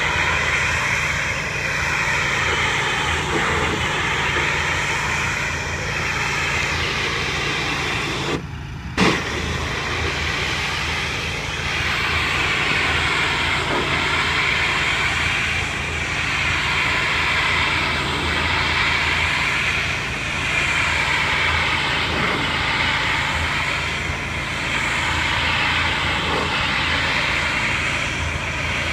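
Pressure washer running steadily, its motor humming under the loud hiss of the high-pressure spray, which swells and fades in slow waves as the spray moves across siding. The spray breaks off briefly, with a click, about a third of the way in.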